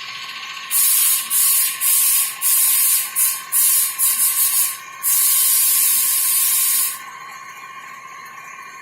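Loud hissing spray in a run of bursts, some long and some quick, starting about a second in and cutting off about seven seconds in, over a steady high machine whine.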